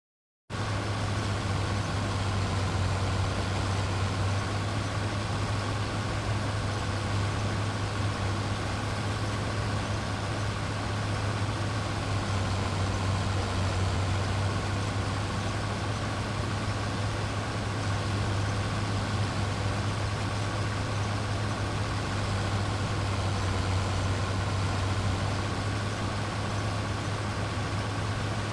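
Engine of heavy farm harvest machinery running steadily, with a strong low hum and a steady whine higher up; it cuts in suddenly right at the start.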